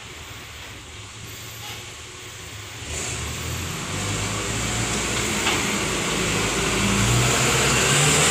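Diesel engine of a light dump truck running under load as it reverses up onto a heap of soil. The engine is fairly quiet at first, gets louder from about three seconds in, and keeps building as the truck comes closer.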